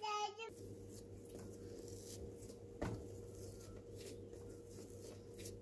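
Soft handling noise of bread dough being pressed and shaped on a marble counter, with one dull knock about three seconds in, over a steady faint hum. A brief voice sounds at the very start.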